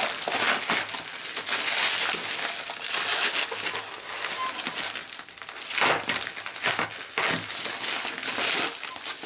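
Plastic mail bag and bubble wrap crinkling in irregular bursts as hands pull at the packaging.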